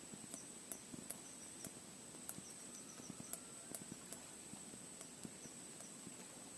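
Faint, irregular small clicks and ticks over a steady, faint high-pitched whine.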